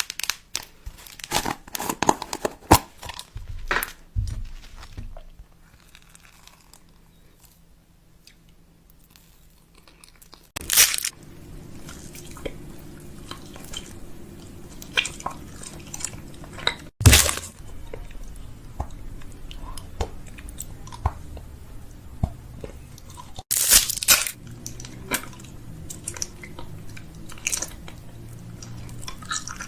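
Food being handled and prepared: crunching with sharp clicks and knocks, in several short stretches separated by abrupt cuts.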